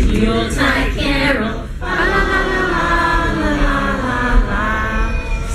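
A group of people singing a song together, children's voices among them, with long held notes through the middle.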